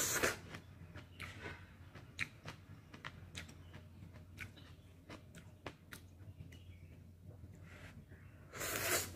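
Close-up mouth sounds of someone eating kimchi ramen: chewing bok choy and noodles with many small wet clicks, and a short burst of noodle slurping near the end.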